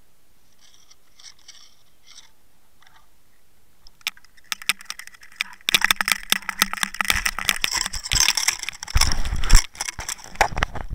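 A camera in a waterproof housing being lifted out of the water: after a few seconds of faint underwater clicks, dense splashing, knocks and scrapes of water and handling against the housing start about four seconds in and grow louder, with heavy thumps near the end.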